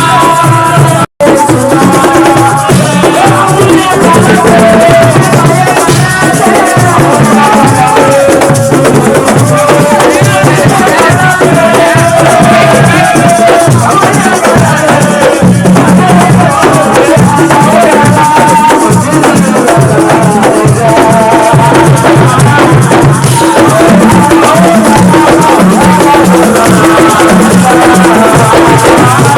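Loud music with a shaker rattling along with drums under a wavering melodic line. The sound cuts out for an instant about a second in.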